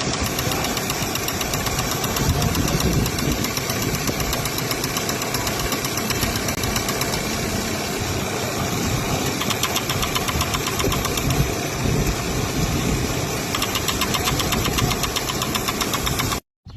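Vehicle engine running steadily with a fast, even ticking, the abnormal engine noise that the fix is aimed at. It cuts off suddenly near the end.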